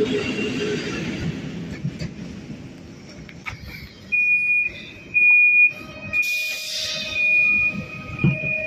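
Door warning beeper of a PESA passenger train sounding after the door push-button is pressed: a series of high, half-second beeps at about one a second, with lower tones joining in and a brief hiss about six seconds in.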